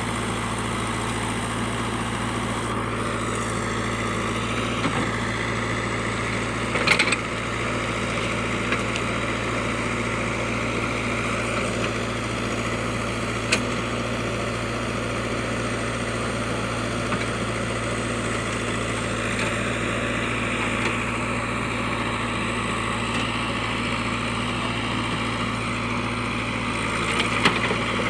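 A JCB's diesel engine running steadily, with a few short knocks about seven seconds in, midway and near the end.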